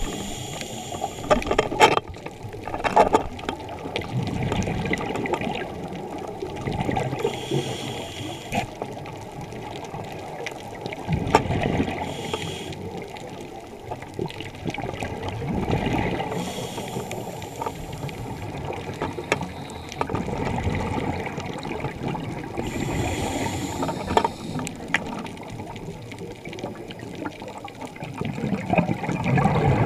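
Scuba regulator breathing recorded underwater: a short hiss on each inhale, every five seconds or so, with the bubbling rumble of exhaled air in between.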